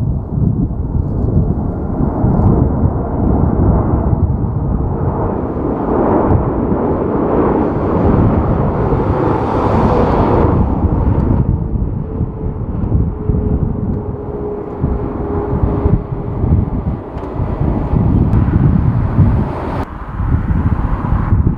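Jet airliner passing, its engine noise swelling to a peak about ten seconds in, followed by a faint whine that slowly drops in pitch. Strong wind buffets the microphone throughout.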